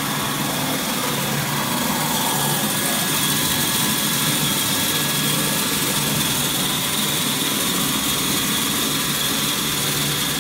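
XY-AI-300 manual maxi roll paper cutting machine running steadily as a large paper roll is pushed through its saw blade: a continuous machine whine with a high steady tone over a low hum.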